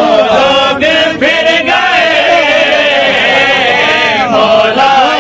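A crowd of men chanting a devotional qasida together, many voices overlapping, loud and unbroken.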